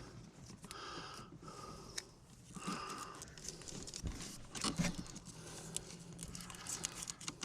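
Scattered clicks and taps with a low thump about four seconds in: hands handling parts and tools during wiring work on a truck.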